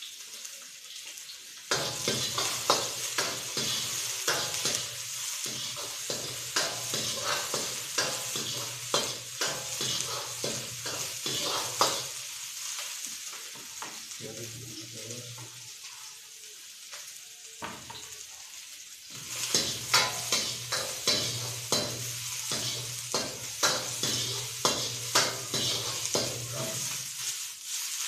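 Stir-frying in a wok: food sizzling in hot oil while a metal ladle scrapes and clanks against the wok in quick strokes. The sizzling and ladle strikes swell about 2 s in, ease off for a few seconds in the middle, and pick up again after that.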